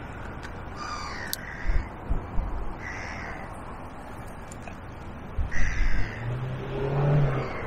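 A gull calling three times, short calls about two seconds apart, with dull low thumps around two and six seconds in and a low steady hum near the end.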